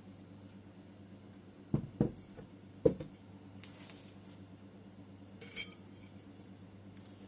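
Hard objects knocking against a ceramic pot: two quick knocks about two seconds in and a third sharper one a second later, followed by two brief soft rustles, like soil being handled.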